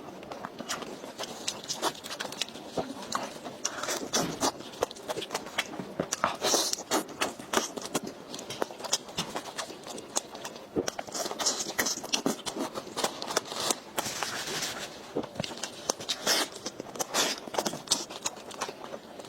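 Close-miked eating sounds: chewing, with a dense run of irregular wet clicks and crackly smacks.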